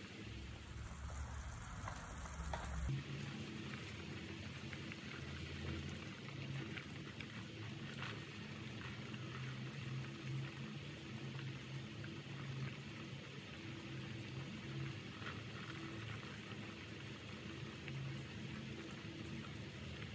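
Pork bone and vegetable soup boiling in a stock pot: steady bubbling, with a faint low hum underneath. The sound changes abruptly about three seconds in.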